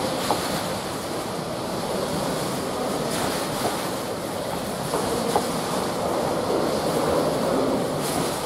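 A train running on the rails: a steady rushing rumble of wheels and wagons, with a few light clicks.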